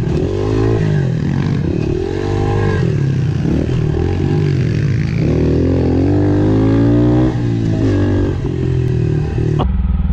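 Dirt bike engine under way on a trail, revving up and down as the throttle is worked and the gears change, with a long climb in revs that drops sharply at a shift.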